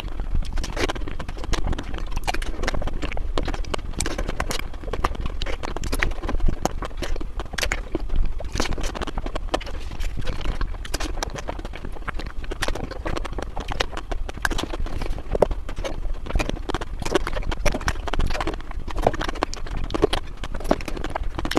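Chewing of crispy ice cream: a continuous run of irregular crunches and crackles.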